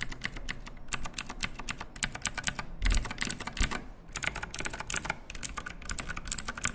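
Typing on a 1st Player Fire Rose MK3 mechanical keyboard with its clicky 'floating switch', a Cherry MX Blue–like switch: fast runs of sharp key clicks with brief pauses between runs.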